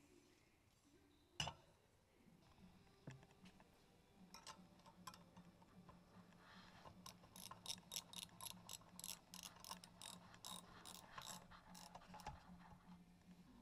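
Faint ratchet wrench clicking in quick runs of about four clicks a second as the bolts holding a dirt bike's rear sprocket to the wheel hub are turned. A single sharp knock comes about a second and a half in.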